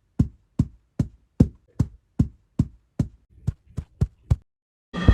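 Cartoon Foley effect: a run of about a dozen short, sharp thumps at an even pace of about two and a half a second, quickening slightly at the end. A steady rumbling noise with a held tone cuts in just before the end.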